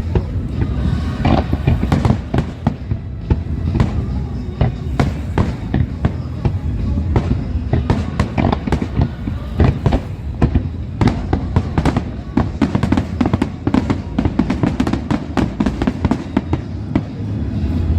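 Professional fireworks display by Parente Fireworks: a dense run of shell bursts and crackling, many sharp reports a second over a continuous low rumble of booms.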